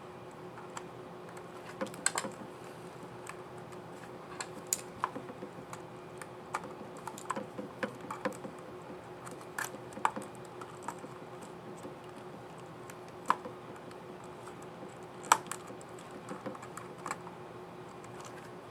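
Scattered plastic clicks and taps from the keycap and scissor mechanism of an Asus ROG GL771J laptop keyboard being fitted, with a few sharper snaps, over a faint steady hum.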